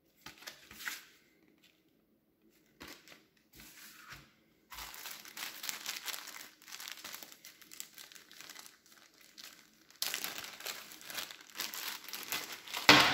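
Plastic and foil food packaging crinkling as it is handled, in short bursts at first and then near-continuous, with a sharp knock near the end.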